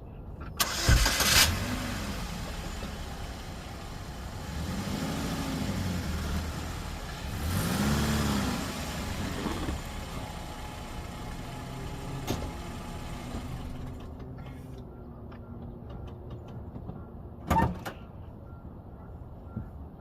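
2009 Chevy Cobalt's four-cylinder engine starting, then running and rising and falling in pitch a few times before it stops about fourteen seconds in. A single sharp thud near the end, like a car door shutting.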